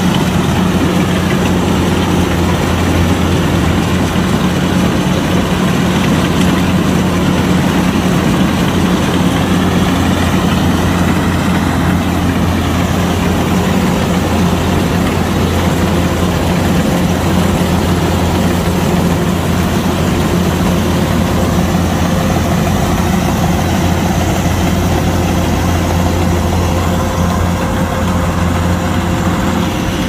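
Kubota DC-105X combine harvester's diesel engine running at a steady speed, a constant low hum with no change in pitch.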